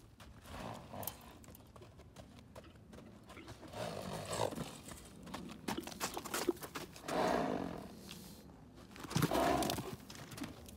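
Chestnut Arabian stallion moving loose on sand: soft hoof falls, and three louder breathy bursts from the horse about four, seven and nine seconds in.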